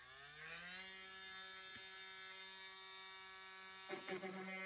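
Cordless oscillating multi-tool starting up, its whine rising in pitch over the first second and then running at a steady buzzing pitch. A brief rattle near the end as the blade bites into the styrofoam.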